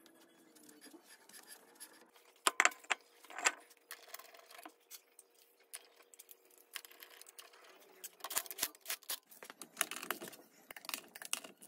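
Alloy wheel going back onto the hub and wheel bolts being fitted by hand: scattered metallic clicks, taps and scrapes, with two sharper knocks about two and a half and three and a half seconds in and a run of quicker clicks near the end.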